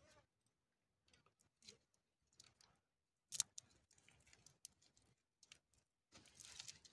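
Near silence with faint handling noise: scattered soft clicks, one sharper click about three and a half seconds in, and light rustling that grows near the end as the crystal is turned in the fingers close to the microphone.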